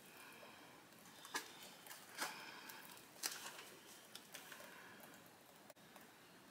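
Faint handling noise as a wet painted canvas is tilted by gloved hands: a few soft taps and clicks, the sharpest about a second and a half, two and a quarter, and three and a quarter seconds in.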